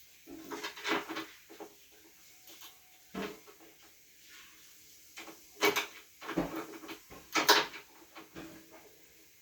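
Irregular sharp knocks and clatter, a few single impacts with gaps between them; the loudest two come past the middle, about two seconds apart.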